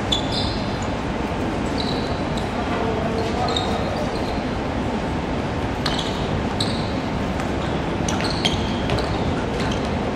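Basketball shoes squeaking on a hardwood court as players jog and change direction: scattered short, high chirps, more of them around the middle and near the end, over a steady din of the hall.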